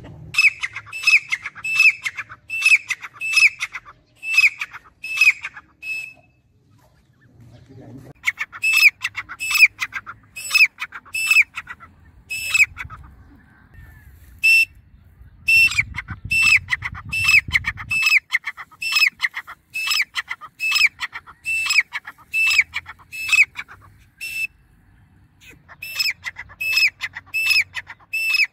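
Grey francolin calling: loud, sharp, high notes repeated about two a second in long runs, each note ending in a short downward flick. The runs break off a few times for a second or two.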